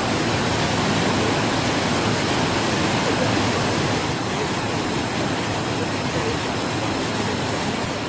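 Niagara Falls: the steady rush of a very large waterfall, a dense, even noise with no breaks.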